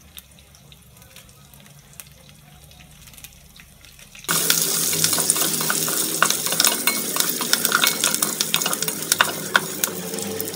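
Spices and fresh curry leaves frying in hot oil in a metal pot, stirred and scraped with a wooden spatula. A dense sizzle full of small crackles comes in suddenly about four seconds in, after a faint start.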